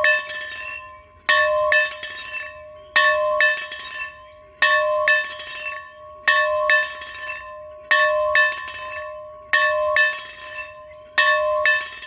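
A bell rung steadily in pairs of strokes, two quick strikes about every second and a half, each left to ring and fade before the next pair.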